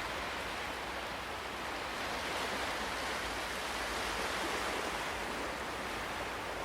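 Ocean waves: a steady rush of surf that swells gently in loudness.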